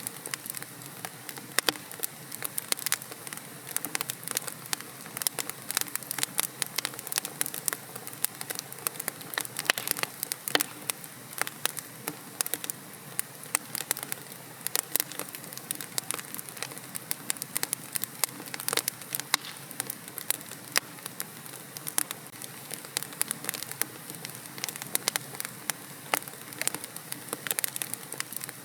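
Fire in a fireplace crackling: a steady hiss of burning broken by many irregular sharp pops and snaps.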